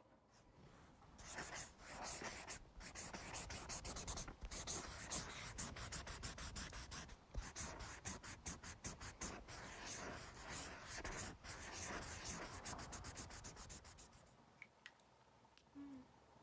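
A drawing pen being stroked quickly and repeatedly on paper, scratching as it traces thick outlines. It starts about a second in and stops about 14 seconds in.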